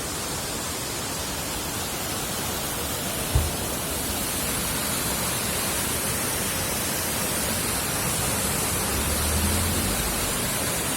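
Waterfall rushing steadily, an even loud hiss of falling water. A brief low thump about a third of the way in.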